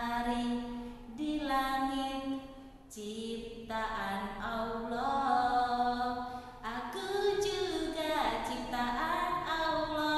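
A woman singing solo and unaccompanied, a simple tune in held notes of about a second each, with small glides between them.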